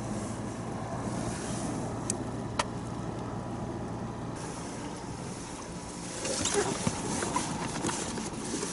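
A steady low background rumble with two sharp clicks a couple of seconds in. From about six seconds in comes a run of small clatters and rustles: hands moving freshly caught anchovies on a plastic mesh mat inside a plastic cooler box.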